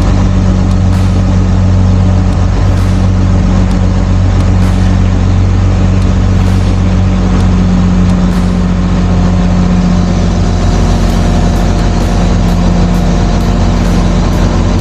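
Crane's diesel engine running steadily at an even pitch.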